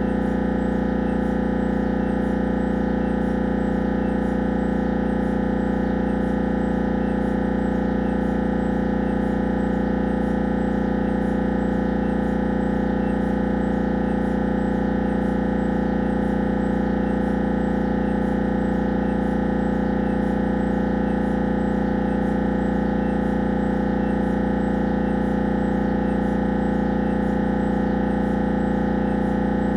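Siemens Magnetom Avanto 1.5-tesla MRI scanner's gradient coils buzzing through a head-scan sequence: a loud, steady, unchanging drone made of fixed tones with a fine, rapid pulsing texture.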